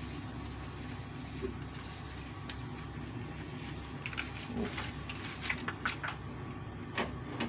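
Paper seasoning sachet crinkling and rustling as it is shaken out over a pan of fish, with a cluster of rustles and small taps in the second half, over a steady low hum.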